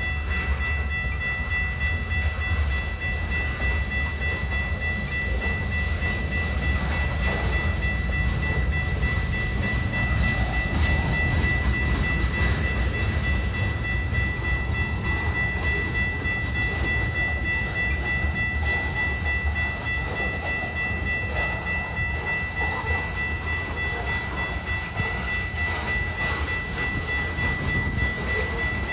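Freight train of covered hopper cars rolling steadily past the platform: a continuous low rumble of wheels on the rails, with a constant high-pitched tone running over it.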